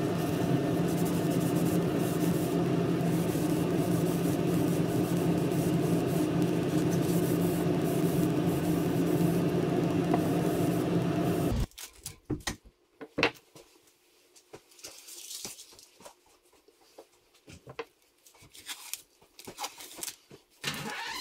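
Steady electric-machine hum, a low, even drone with a higher tone above it, that cuts off suddenly a little past halfway. After it stops there are only light clicks, taps and soft paper rustles from handling on the table.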